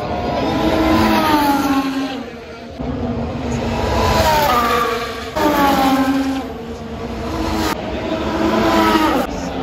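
Formula 1 cars with turbocharged V6 hybrid engines passing at speed one after another, about four in turn, each engine note swelling and then falling in pitch as it goes by.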